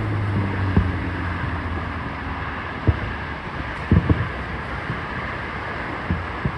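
Fireworks going off in the distance: about six short, sharp bangs at irregular intervals, two of them close together near the middle, over a steady rush of wind and crowd-area background noise. A low hum fades out in the first second or so.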